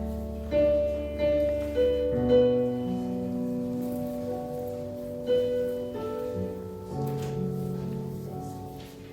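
Electronic keyboard playing a slow hymn: a melody of held notes over sustained chords, with new notes struck about every half second at first and then longer held chords.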